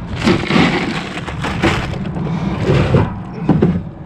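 Ice cubes clattering and shifting in a rotomolded cooler as it is filled, in a run of irregular crunchy bursts.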